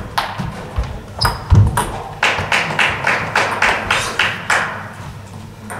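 End of a table tennis rally, with a few sharp ball knocks and a low thud, followed by steady hand clapping at about four claps a second for around two seconds as the point is won.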